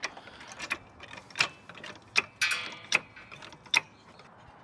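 Sharp metallic clicks and clinks of hand tools at work on a car's wheel, coming irregularly about once every half second to second. About halfway through, one clink rings briefly like struck metal.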